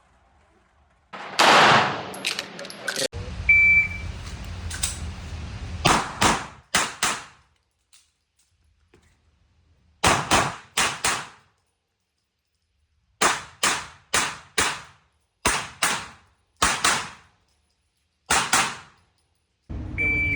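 A compensated SIG Sauer P365 pistol firing fast strings of shots, mostly in pairs of quick cracks, with pauses of a second or two between groups.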